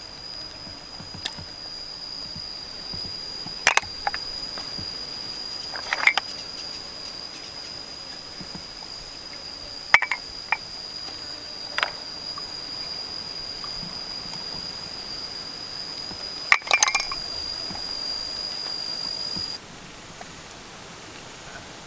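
Hard snail shells clicking and knocking as the cooked meat is picked out of them with a small stick: a handful of sharp, scattered clinks over the steady rush of a stream. A steady high tone runs underneath and cuts off near the end.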